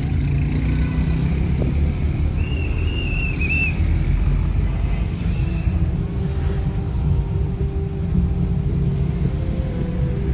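Steady engine and road rumble of a car driving slowly through city traffic, heard from inside the cabin. A brief high warbling whistle sounds about three seconds in.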